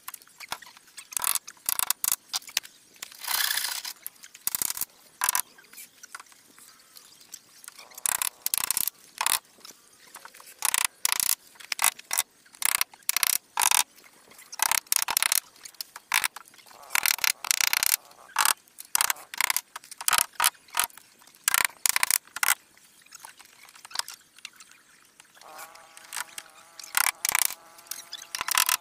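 Hammer blows on the wooden hull of a large plank boat as a side plank is fastened: sharp, irregular strikes, often several in quick succession. A steady buzz joins near the end.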